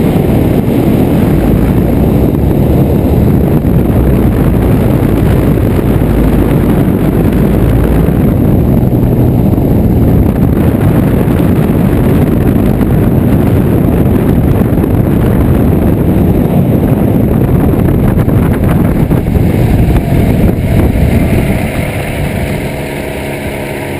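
Loud wind rush on the wing-mounted microphone mixed with the ultralight trike's engine in flight. Near the end the trike lands and the wind drops away, leaving the engine's steady hum as it is throttled back and slows slightly in pitch.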